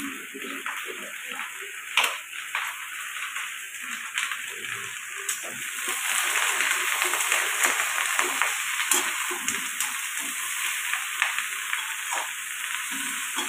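Sliced okra and onions sizzling in an aluminium kadai over a gas flame, stirred with a spatula that scrapes and clicks against the pan. The sizzle grows louder about halfway through.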